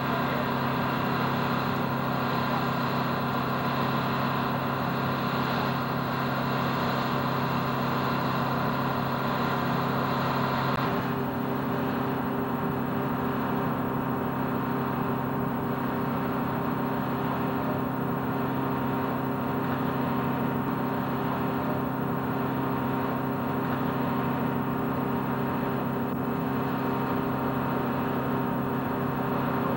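Steady mechanical drone of running machinery, with several held tones over a hiss. About eleven seconds in, the higher whine and hiss drop away and a lower hum carries on.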